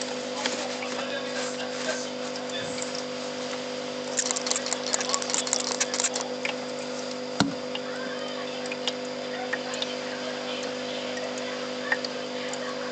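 A hand spray bottle misting water: a couple of seconds of quick hissing spritzes about four seconds in, followed by a single sharp knock. A steady hum runs underneath.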